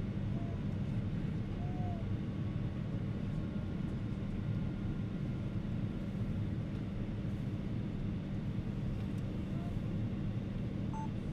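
Steady cabin noise inside a Boeing 777-300 airliner in flight during its descent: an even rumble of engines and airflow, heaviest in the low range.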